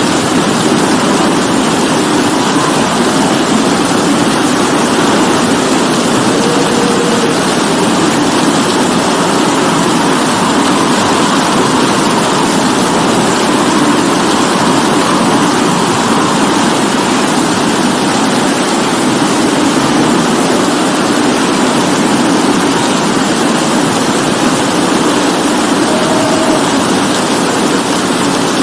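Steady heavy rain, an even, unbroken hiss of falling water.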